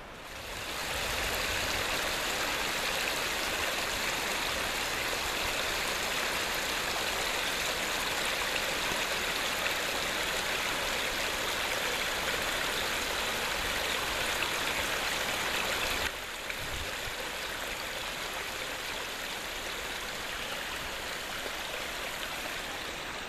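Small mountain stream trickling and rushing over mossy rocks, a steady wash of running water that drops somewhat in level about two-thirds of the way through.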